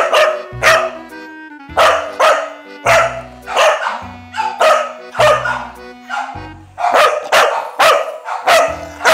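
Welsh Corgi barking repeatedly in short sharp barks, roughly one or two a second with brief gaps, over a bed of background music.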